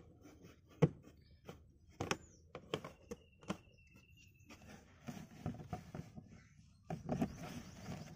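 A flat screwdriver prying a black plastic push-type trim clip out of the car's carpeted boot trim: a series of sharp clicks and knocks as the clip and tool work against the plastic panel. After that, rustling and scraping as the carpet and trim are pulled by hand.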